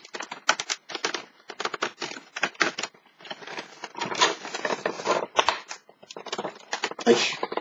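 Fingers picking open a cardboard door on a Cadbury chocolate advent calendar and handling the box: a quick, irregular run of small clicks, scrapes and rustles.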